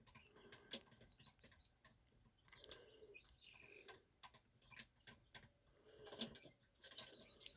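Near silence with faint, scattered clicks: fingertip taps on a phone's touchscreen keyboard while typing a search.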